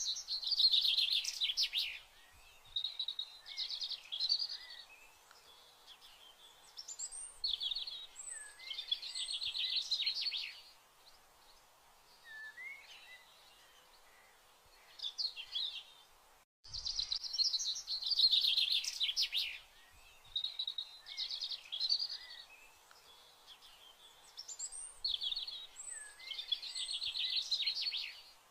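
Birds singing: bursts of rapid chirps and trills a few seconds long, separated by short quieter gaps. After a brief cut just past halfway, the same stretch of song repeats.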